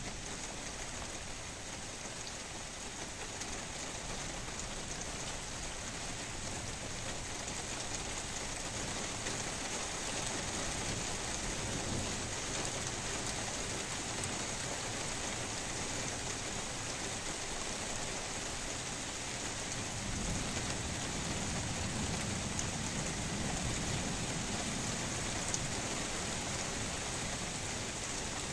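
Heavy rain falling steadily in a thunderstorm, slowly growing louder. A low rumble of thunder swells under it from about twenty seconds in.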